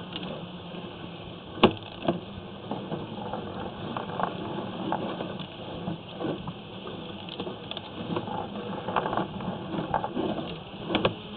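Sewer inspection camera's push cable and reel being worked by hand: irregular clicks, knocks and rattles, with one sharp knock about one and a half seconds in.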